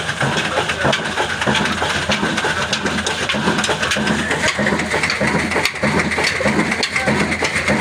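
Old single-cylinder desi diesel oil engine running with its drive belt on, making a steady, regular knock of firing strokes. A steady whine rises slightly in pitch about halfway through.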